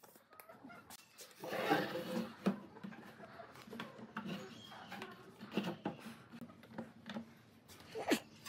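Wooden table-base parts knocking and rubbing as they are handled and fitted together, with a few sharp knocks.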